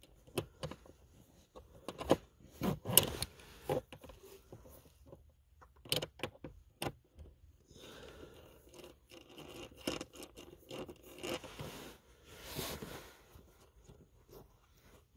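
Irregular metallic clicks, taps and scrapes of a socket on a long extension working at a small screw in a plastic dashboard housing, busiest about two to three seconds in. Softer scraping and rustling follow as the wiring harness is handled.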